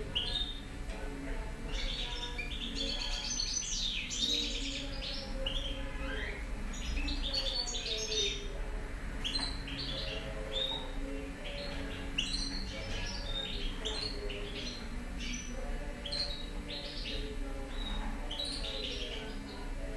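Caged European goldfinch singing: a rapid, twittering run of high chirps and trills with brief pauses between phrases.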